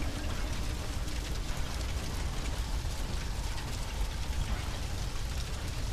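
A large fire burning: a steady rushing noise with a heavy low rumble and scattered crackles.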